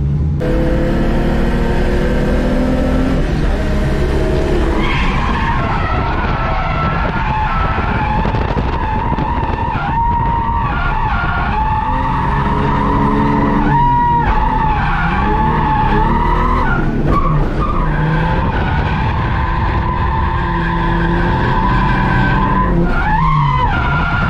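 Holden VS Commodore's standard V6 revving hard, heard from inside the cabin, with the tyres squealing in long drift slides. The squeal and the engine note drop out briefly a few times, between slides.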